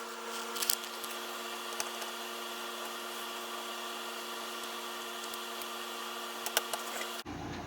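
A few light, sharp clicks and taps of a small precision screwdriver and tiny phone screws, over a steady low electrical hum.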